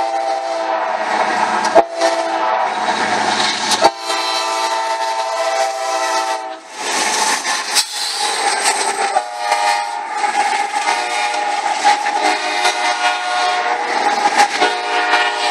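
A CSX freight locomotive's horn sounding a multi-tone chord in long blasts as the train approaches. From about seven seconds in, the locomotives and then intermodal cars pass close by with a rush of rail and wheel noise, the horn still sounding over it.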